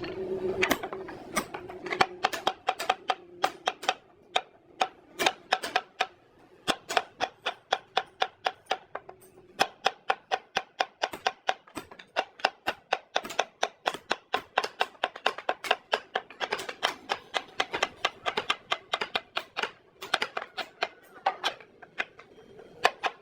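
A long, uneven series of sharp taps, several a second, with a few short pauses.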